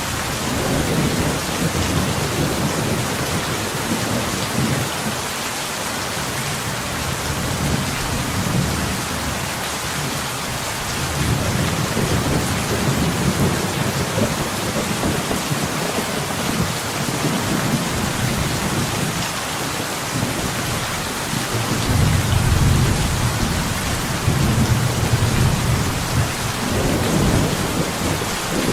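Steady rain pattering on window glass, with low rolling thunder rumbling in and out several times, loudest about three-quarters of the way through.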